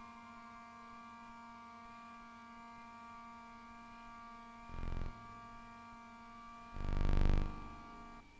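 Synthesizer drone of several steady held tones, broken by two short buzzy bursts, one about five seconds in and a louder, longer one about seven seconds in; the drone cuts off just before the end.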